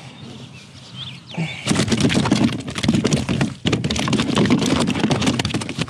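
A landed northern snakehead being unhooked and handled in a plastic kayak: dense crackling knocks and rustling as the fish and hands move against clothing and the hull, starting about a second and a half in.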